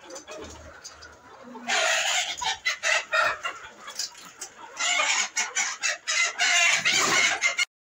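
Flock of Fayoumi chickens clucking and squawking, quieter at first and loud from about two seconds in. The sound cuts off abruptly near the end.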